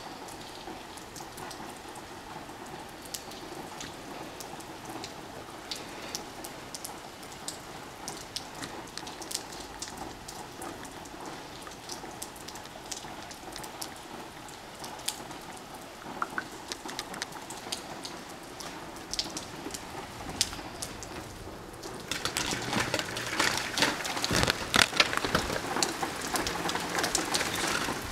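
Rain falling steadily, with many separate drops ticking close by. About 22 seconds in it suddenly gets louder and denser.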